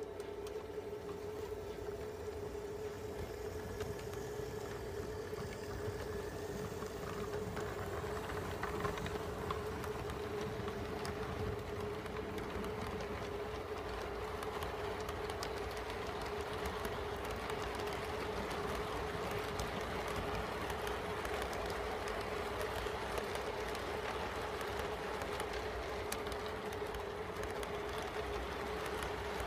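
Model train's freight cars rolling past on the track, a steady rattling and clicking of wheels that builds over the first several seconds as the train gets moving, over a steady hum.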